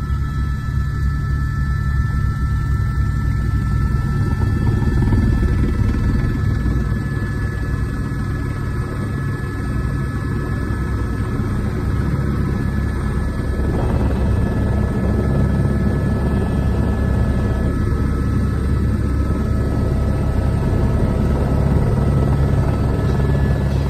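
Airbus AS350 Écureuil helicopter heard from inside the cockpit: the main rotor beating and the turbine whining steadily as it comes in to land.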